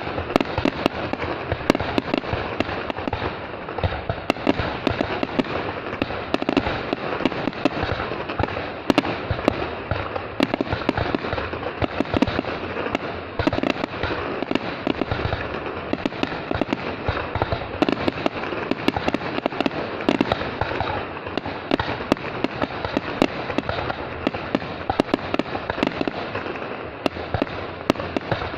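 Fireworks going off in a dense, continuous barrage of overlapping bangs and crackles, with no let-up.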